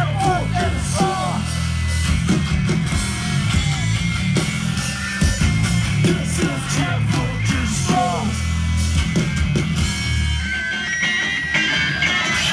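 A hardcore punk band playing live and loud: heavy distorted guitar and bass over pounding drums, with shouted vocals.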